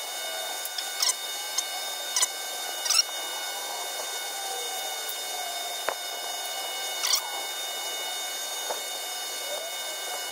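Lead burning on an industrial battery's cell connectors: a steady hiss with a faint high whine, broken by four short, sharp squeaks that fall in pitch and a single click near the middle.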